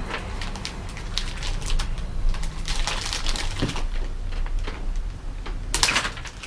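Plastic packaging crinkling and rustling as it is handled and pulled open, in a run of irregular short crackles with a denser patch midway and a sharp, loud rustle near the end.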